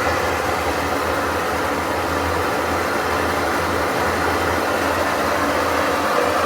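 GE washing machine running with a loud, steady drone and rushing noise like an airplane, the sign of broken drum bearings.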